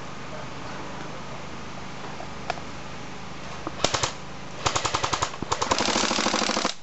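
Airsoft electric rifle firing on full auto: short rapid bursts starting about four seconds in, then a longer continuous burst of over a second near the end.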